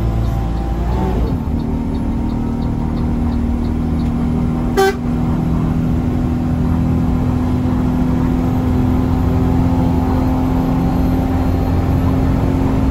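Bus engine running steadily as heard from inside the cab, with a steady hum, and one short horn toot about five seconds in.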